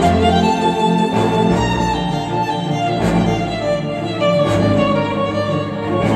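Cinematic orchestral music: violins and strings playing sustained lines over a deep bass, punctuated by sharp drum hits about every one to one and a half seconds.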